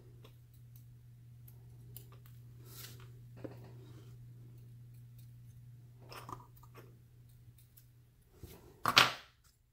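Small clicks and scratches of steel tweezers working lock springs into a brass euro cylinder, over a steady low hum. A single short, loud, sharp sound comes near the end.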